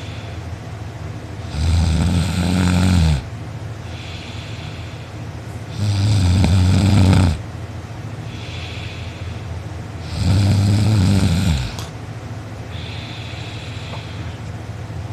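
A person snoring loudly in deep sleep: three long, low, buzzing snores about four seconds apart, each lasting about a second and a half, with a softer breathy sound between them.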